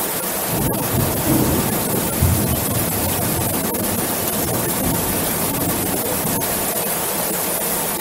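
Heavy rain falling on an aluminium roof, an even, steady hiss. A low rumble of thunder comes in about half a second in, swells twice and dies away by about three seconds.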